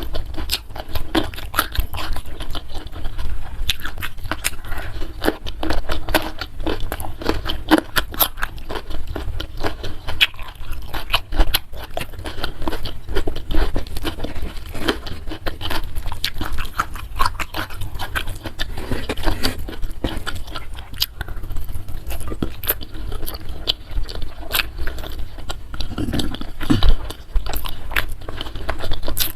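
Close-miked chewing and crunching of food, a dense run of wet mouth clicks and small crunches.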